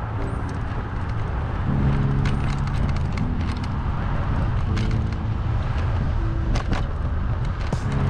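Steady wind and road rumble from riding a bicycle in traffic, with a few sharp clicks. Over it, music plays low held notes that change in steps.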